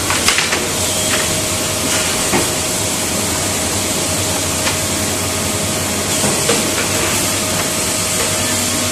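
Liton MHZ1560AX600II automatic finger-joint machine line running in a factory hall: a steady, loud machine noise with a faint steady whine, broken by short clacks and knocks at irregular moments.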